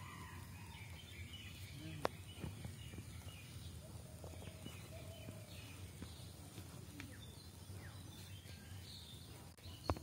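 Quiet outdoor ambience with small birds chirping faintly and a steady low rumble, broken by a few sharp clicks, one about two seconds in and one near the end.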